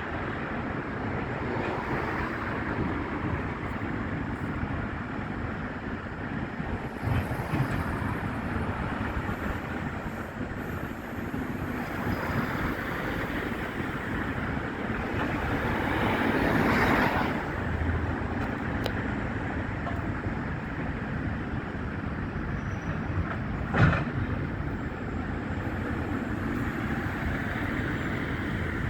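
Steady outdoor rumble of machinery engines and wind. It swells briefly about halfway through, and one sharp knock comes near the end.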